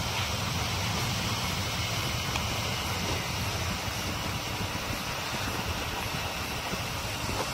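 Honda ST1300 Pan European motorcycle cruising at about 70 km/h: its V4 engine running steadily under a constant rush of wind over the helmet-mounted microphone.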